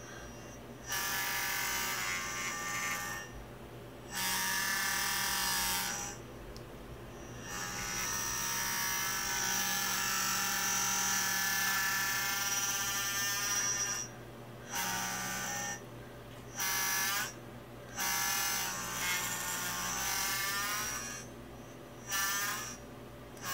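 Feiyu-Tech WG three-axis gimbal's motors buzzing in repeated loud bursts, from about a second to six seconds long, over a fainter steady hum, the pitch wavering near the end. A faulty buzz that the owner says makes the gimbal unusable.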